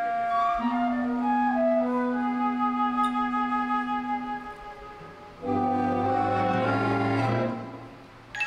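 Orchestral music from the sing-along show's soundtrack: a slow melody of held notes over a long low note, swelling into a fuller chord with bass partway through, then fading away. A short sharp click comes right at the end.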